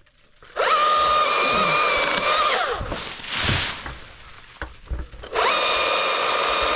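Electric chainsaw running flat out, released about two and a half seconds in so that its whine falls away as the chain winds down. A few knocks follow, and the saw is squeezed up to full speed again about five seconds in.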